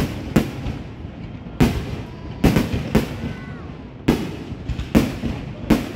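Aerial fireworks shells bursting overhead: a quick, uneven series of sharp bangs, about eight or nine in six seconds, each trailing off in a short echo.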